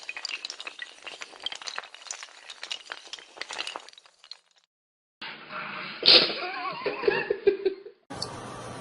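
Rapid clattering and clinking of hard objects falling and breaking, for about four seconds. After a brief silence comes one sharp loud knock, followed by a short wavering voice-like sound.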